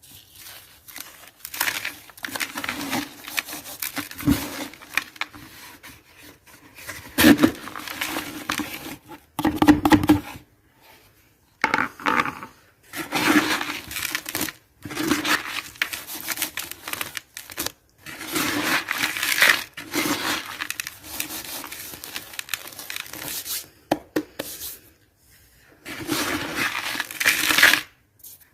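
Dry cement chunks being crumbled, a gritty crunching and crackling that comes in bursts of a few seconds, broken by short silences.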